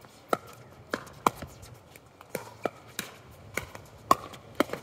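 Pickleball rally: a quick run of sharp pocks as paddles strike the hollow plastic ball and the ball bounces on the hard court, about nine or ten in under five seconds.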